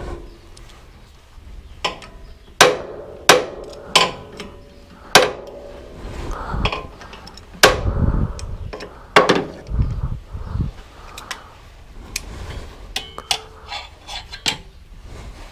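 Hand tools on a steel V-belt pulley as the bolts locking it to its hub are tightened: about six sharp metallic clanks with a short ring in the first ten seconds, then lighter, quicker clicks and knocks.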